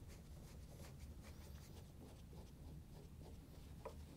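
Faint clicks and scratches of a Phillips screwdriver turning screws into a washer's control panel.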